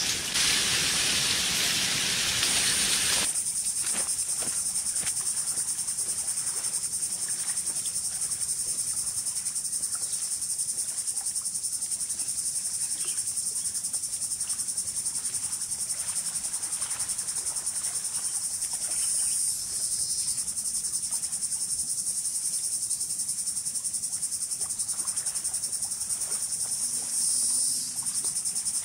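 Insects chirring in a steady, high-pitched drone with a fast pulse. A louder hiss covers it for about the first three seconds, then cuts off suddenly.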